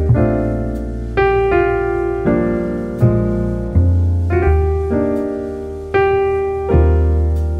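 Solo piano playing slow jazz chords, a new chord struck about once a second and left to ring and fade, over deep bass notes.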